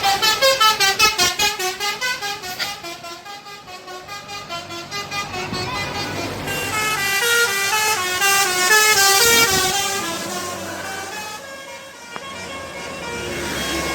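Telolet musical bus horn playing a rapid melody of quick stepped notes, in runs that are loudest at the start and again around the middle.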